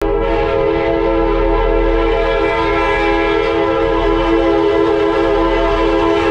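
Diesel freight locomotive EMDX 7211's multi-chime air horn blowing, held as one long unbroken chord of several notes at once, with the locomotive's low rumble beneath.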